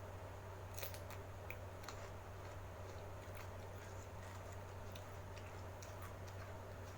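Close-miked eating sounds: chewing with scattered small clicks and mouth smacks, irregularly spaced, over a steady low hum.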